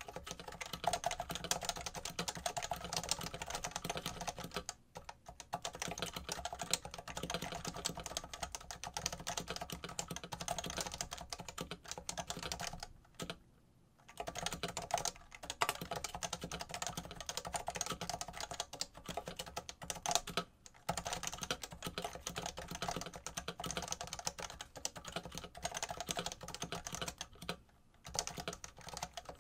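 Fast, continuous typing on a Topre-switch FC660C keyboard fitted in a Norbauer Heavy-6 case: a dense run of keystrokes. It stops briefly about five seconds in, for a longer moment around thirteen seconds, and again briefly around twenty and twenty-eight seconds.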